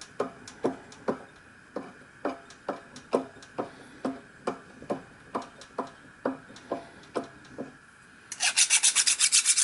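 Light, evenly spaced clicks, two or three a second, as a drill-press chuck is turned by hand to start a taper tap into holes in a brass valve plate. Near the end, a louder two-second burst of rapid back-and-forth scrubbing strokes on the metal part.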